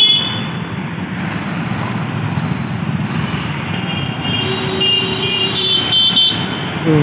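Busy road traffic heard while moving: a steady rumble of motorbike and scooter engines and tyres. A vehicle horn sounds for about two seconds a little past the middle.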